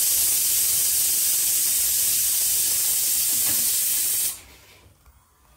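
A loud, steady hiss that starts suddenly and cuts off abruptly after about four seconds.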